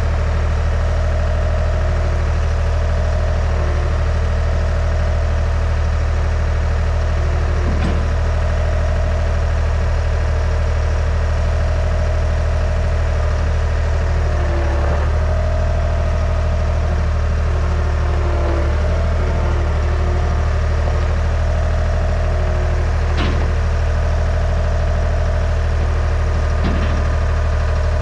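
Skid steer engine running steadily at idle, with a few sharp knocks scattered through.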